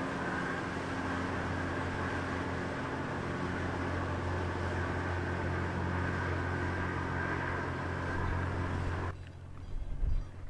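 Lake freighter's engine and machinery droning steadily at close range as the ship passes, a deep hum with a fainter higher whine over it. About nine seconds in it cuts off abruptly, leaving quieter open-air noise with a few low thumps.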